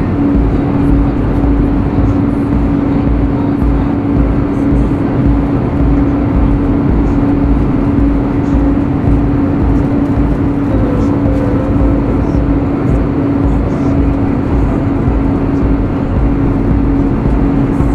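Jet airliner cabin noise at cruise, heard from a seat by the wing: a loud, constant rush of air with a steady droning hum running through it.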